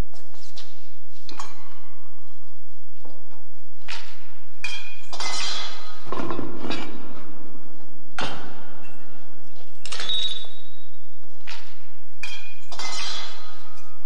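Silver altar pieces, candlesticks and a crucifix, knocking and clinking against each other as they are handled. It is a series of about a dozen metal knocks, each with a short bright ring, and the heaviest clatter comes around the middle.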